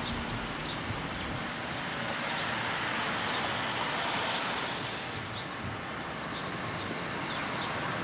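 Outdoor traffic: a passing road vehicle swells up and fades away in the middle of a steady hiss, with faint high chirps scattered through.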